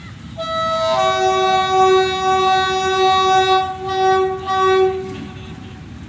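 Pakistan Railways RGE-24 diesel locomotive 5218 sounding its multi-tone horn: a chord of several notes, a lower note joining about half a second after the first, held for about three seconds, then two short blasts.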